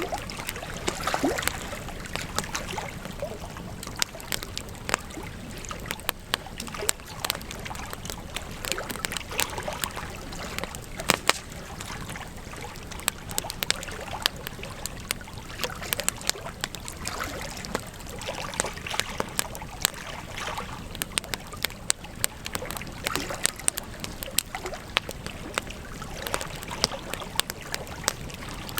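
Campfire crackling: burning wood giving frequent sharp snaps and pops over a steady hiss of flame, with a louder pop about eleven seconds in.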